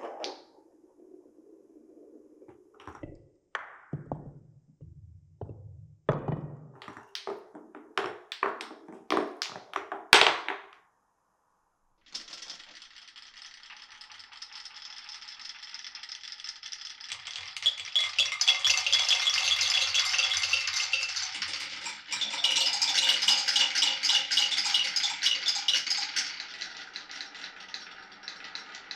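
Marbles knocking and clacking down a wooden marble run, the clicks coming faster until one loud strike about ten seconds in. After a second's pause a long continuous rattle of rolling runs on, swelling twice.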